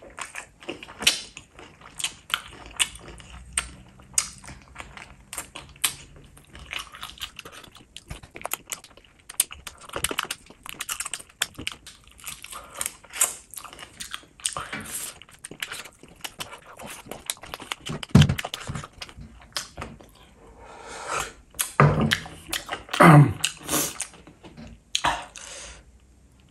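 Close-miked mouth sounds of a person eating a chicken drumstick in spicy gravy: wet chewing and lip smacks in a steady string of short clicks, louder a few times near the end.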